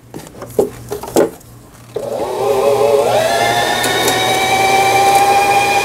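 A couple of clicks, then about two seconds in the Singer 3827 sewing machine's electric motor starts and speeds up to a steady high whine, running at full speed to wind a bobbin.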